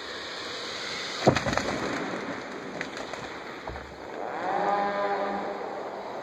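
The cut-off top of a tall conifer landing about a second in: a sharp crash, then branches crackling and swishing, with a lower thump a few seconds later. In the last two seconds a pitched droning sound rises and then holds steady.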